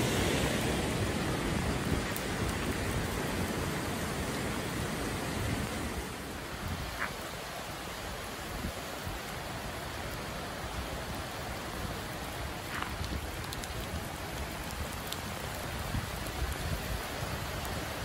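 Heavy tropical-storm rain pouring down, with wind buffeting the microphone as a low rumble. Louder for the first few seconds, then easing slightly and staying steady.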